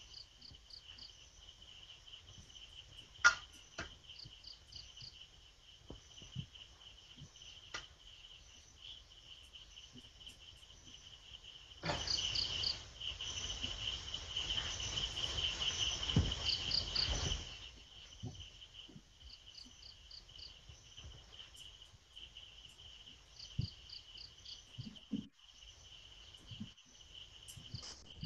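Crickets chirping steadily at night, a continuous high trill with rapid pulsed chirps above it. A sharp click comes about three seconds in, and a louder noisy stretch of about five seconds comes midway.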